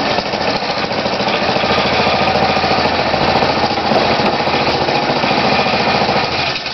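Engine of a self-propelled lorry rail car running steadily with a rapid, even chatter. It gets quieter near the end.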